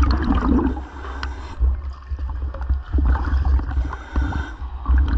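Diver breathing in a surface-supplied diving helmet: air hissing through the helmet in breath-length spells that come and go, over a constant low rumble and bubbling.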